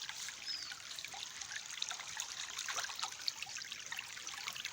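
Small stream running with a steady trickling, babbling patter of water.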